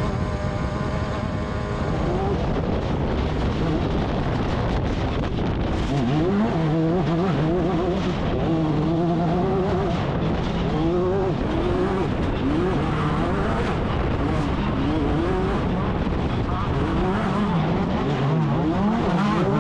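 Class 10 off-road race car's engine running hard under load, its pitch climbing and dropping again and again as it revs up and shifts, over a loud rushing noise.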